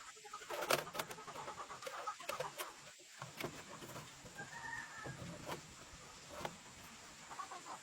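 Scattered clicks and knocks, with a chicken's short clucking call about five seconds in.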